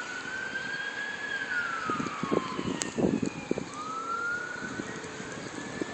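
Emergency-vehicle siren wailing, its tone sliding slowly up, falling back around the middle and rising again near the end. A few soft knocks and a sharp click come around the middle.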